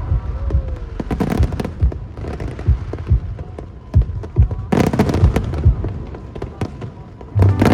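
Aerial fireworks bursting in quick, irregular succession: deep booms mixed with sharp cracks and pops. The show's music comes back in near the end.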